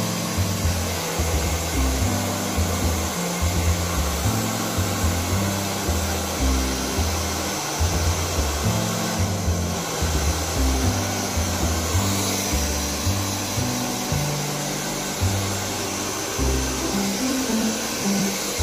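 Handheld electric hair dryer running steadily, blowing air over a wet dog's fur. Background music with a bass line plays under it.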